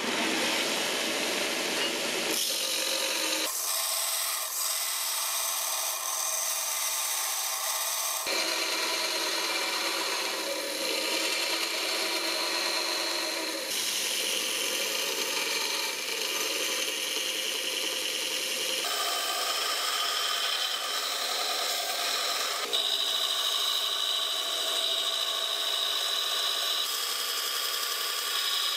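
Belt grinder running with a curved steel blade, forged from a ball bearing, pressed against the abrasive belt: a steady, high-pitched grinding of steel on the belt. The pitch and tone shift abruptly several times.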